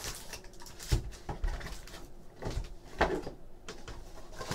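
Foil trading card packs rustling as they are pulled out of their box and stacked, with a few light knocks as they are set down on the table, about a second in and twice more around the middle.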